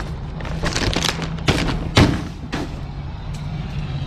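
A steady low hum under several sudden thumps and rustles on the microphone, the loudest about two seconds in, as the handheld camera is moved about.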